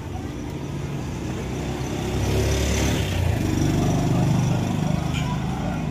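A small motor vehicle engine running, getting louder about two seconds in and staying loud.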